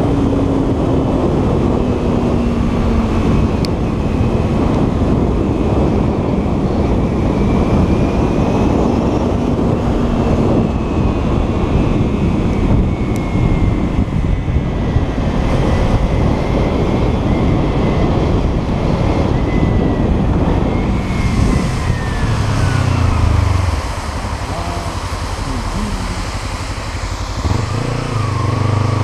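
Kawasaki Ninja 300's parallel-twin engine under way beneath a heavy, steady rush of wind and road noise, its note sinking slowly as the bike holds and then eases its speed. About three-quarters of the way through the rush drops off as the bike slows, and near the end the engine note rises again as it accelerates.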